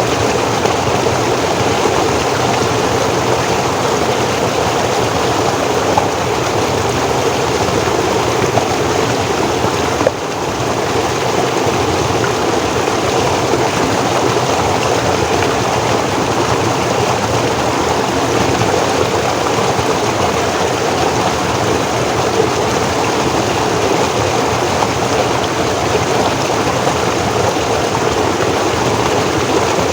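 Forest stream flowing, a steady rush of water with a brief dip in level about ten seconds in.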